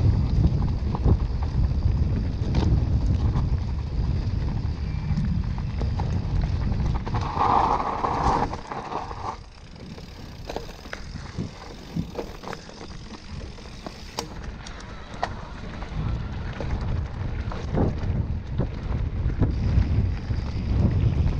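Mountain bike being ridden on a trail: wind buffets the microphone with a heavy rumble while the bike knocks and rattles over rough ground. A short hiss comes a little past seven seconds in, and the wind eases for several seconds in the middle before picking up again.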